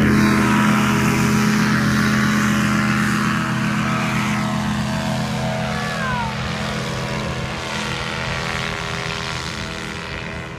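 Paramotor engine and propeller running steadily at a constant pitch, slowly growing fainter as the powered paraglider draws away.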